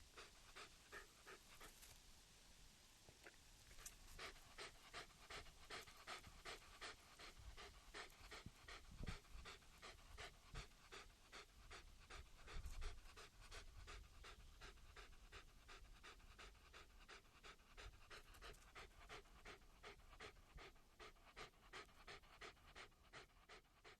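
A puppy panting quickly and faintly in an even rhythm of about three breaths a second.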